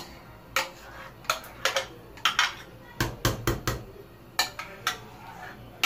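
A metal spoon scraping and tapping against a bowl and the rim of a cooking pot while cocoyam paste is spooned into soup: a string of sharp, irregular clicks and knocks, thickest about three seconds in.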